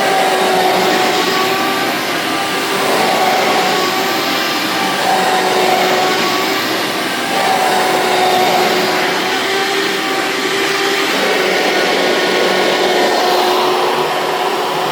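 Hoover Turbopower 1700 upright vacuum cleaner running: a steady rush of air with a motor hum and whine whose pitch wavers slightly, the level swelling and easing gently every couple of seconds.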